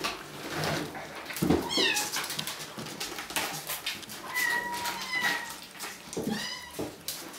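Bengal kittens mewing: high-pitched mews about two seconds in and again near the end, with two short, flatter squeaky mews in between. Scattered clicks and scratches run throughout.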